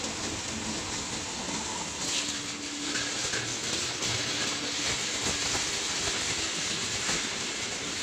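Copper-aluminium radiator recycling machine running: a steady mechanical din with a dense rattle of crushed metal pieces moving through the crusher and the vibrating separator.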